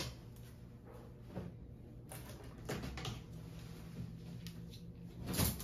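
Clothes rustling and light knocks against a wooden clothes cabinet as someone rummages through its shelves, a few separate handling noises with a louder bump near the end.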